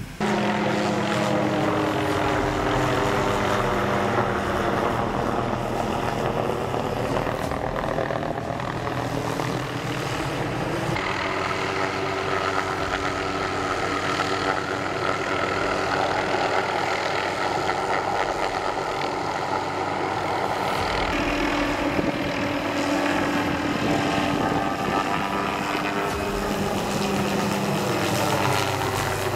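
Small helicopter flying low overhead, its rotor and engine running loud and steady, the pitch sliding down and up as it passes.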